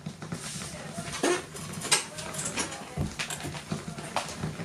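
Turntable stylus riding the run-out groove at the end of a vinyl LP side: scattered crackles and clicks of surface noise with a couple of dull low thumps, over a steady low hum, the music having ended.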